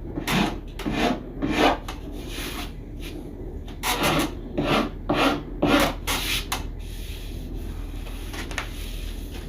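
Short back-and-forth strokes rubbing and scraping along a plywood edge covered with iron-on edge banding, about a dozen in clusters, thinning out in the last few seconds.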